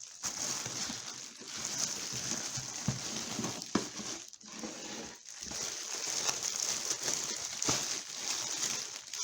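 Packaging being handled and opened: continuous rustling and crinkling with scattered small clicks and scrapes.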